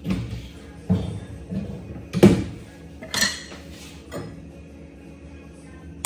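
Kitchen handling clatter: a non-stick frying pan and a wooden spatula knocking against a gas stove's metal grate, with clinks from a plastic oil bottle being set down. There are about six separate knocks and clinks in the first four seconds, the loudest a little over two seconds in.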